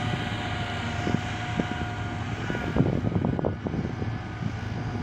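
Heavy diesel engine running steadily, with scattered knocks and clatters that are thickest around three seconds in.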